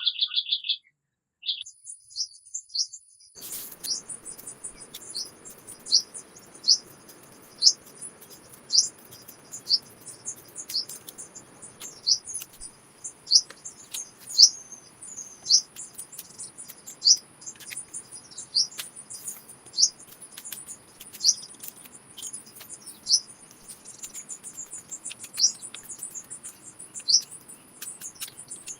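A songbird chirping repeatedly in short, sharp notes, about one a second. Behind it runs a steady thin high-pitched tone and a faint outdoor hiss, which start about three seconds in after a brief call and a moment of quiet.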